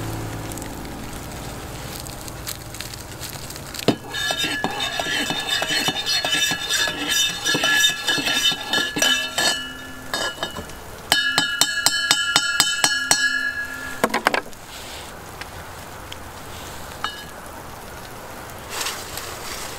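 A metal spoon clinking against a mug while stirring coffee, in two spells of quick ringing clinks.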